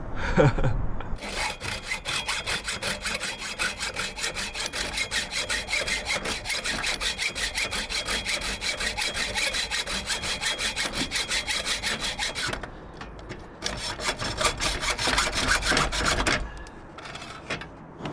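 Hacksaw cutting 316 stainless steel in rapid, even back-and-forth strokes, about five a second, pausing about twelve seconds in, then a few more uneven strokes before it stops. A short falling tone is heard at the very start.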